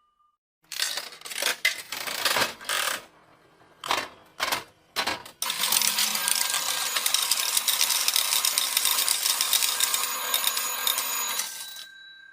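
Slot machine jackpot sound effect: a few short jingling bursts, then a dense shower of coins rattling down for about six seconds. A faint held tone starts near the end.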